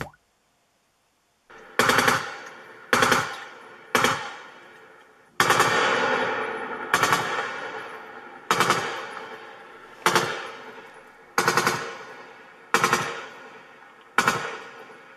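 Bookshelf loudspeakers playing back a recording of about ten loud bursts of rapid strikes, one every second and a half or so, each dying away in a long echo.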